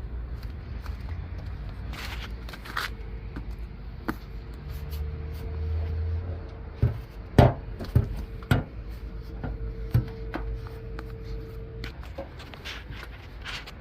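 The car's bonnet being opened and handled: several sharp metallic clacks and knocks, about seven to ten seconds in, over a low steady rumble.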